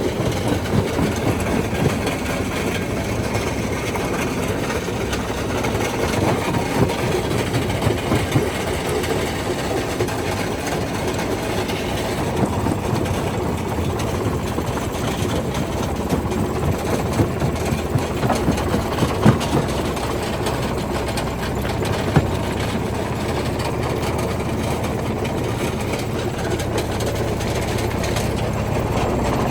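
Quarry primary jaw crusher running steadily: a continuous heavy mechanical rumble and grinding as rock is crushed, with scattered sharper knocks, the loudest about 19 seconds in.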